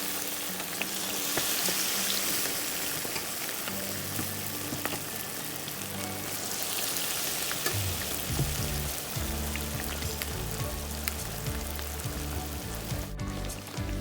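Food frying in hot oil: a steady crackling sizzle. Background music comes in under it, growing heavier about halfway through.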